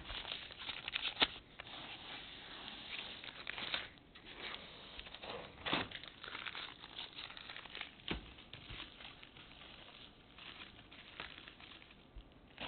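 Blue masking tape being peeled off the silicone-sealed seam of a synthetic bowling lane and crinkling as it is pulled away: a crackly rustle with a few sharp clicks.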